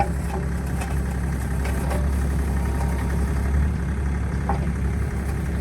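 Bobcat E42 mini excavator's diesel engine running at a steady idle, a low even hum.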